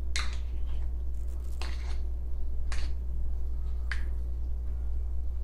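Wooden spoon scraping thick sour cream out of a measuring cup into a bowl of chopped spinach and artichoke: four short scrapes and squelches about a second apart, over a steady low hum.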